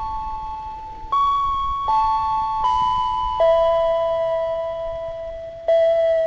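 Level-crossing warning loudspeaker playing an electronic chime melody: clear bell-like notes struck one after another about a second apart, each fading away, with one lower note held for about two seconds.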